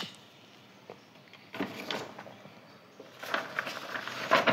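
Sheets of paper on a clipboard being handled and lifted, rustling. A sharp click comes at the start and a short rustle just under two seconds in, then denser rustling and crinkling from about three seconds in as the pages are lifted.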